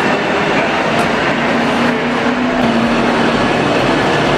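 Sany SPC400 truck crane's diesel engine running steadily, heard as a loud even rush of noise with a faint steady hum under it.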